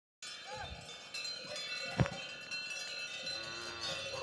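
Bells on a grazing cattle herd ringing and clinking, several overlapping tones at once, with one sharp knock about two seconds in.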